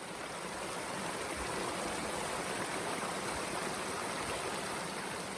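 Waterfall: a steady rush of falling water, swelling slightly over the first second or so.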